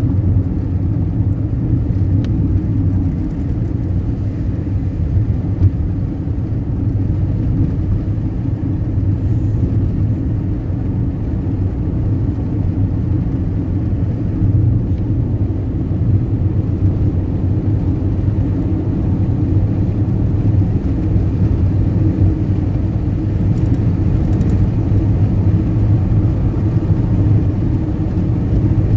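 A road vehicle travelling at a steady speed: a continuous low rumble of engine and road noise.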